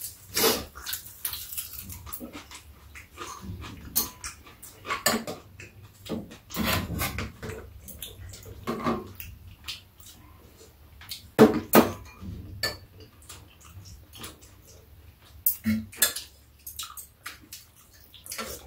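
Eating at a table: metal chopsticks and spoons clicking and scraping against ceramic bowls in irregular taps, with slurping and chewing of noodles and soup.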